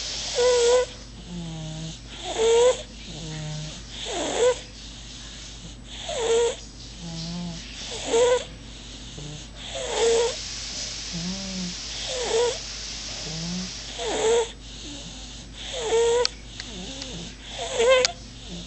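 Rhythmic snoring-like breathing with a short, squeaky, pitched note on each breath, repeating about every two seconds.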